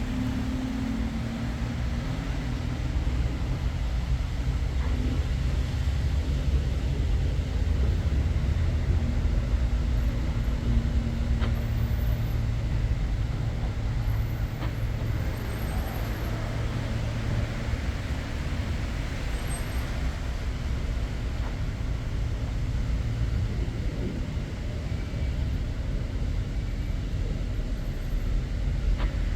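Steady road traffic noise: vehicles running in a street, with a low rumble throughout.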